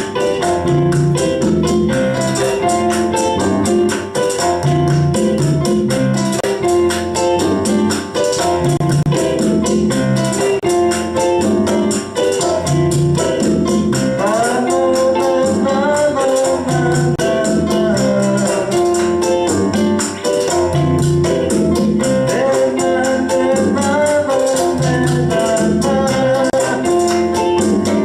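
Live Latin band playing a steady montuno groove together: a repeating piano montuno over a bass tumbao, with a guitar part and shaken hand percussion, all locked to the clave rhythm.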